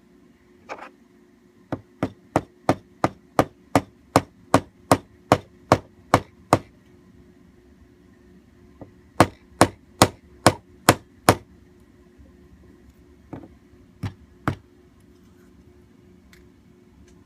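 Small brass-headed hammer tapping on metal held in pliers. It gives a run of about fourteen steady taps, roughly three a second, then pauses, gives a second run of six, and ends with a few scattered taps.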